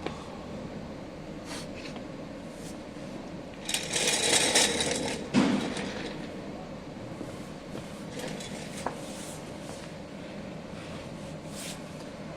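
MOPA fiber laser marking machine with a steady fan hum, and a loud hiss about four seconds in that lasts a second and a half, followed at once by a thud.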